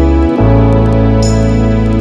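Background music of slow, sustained keyboard chords, moving to a new chord about half a second in.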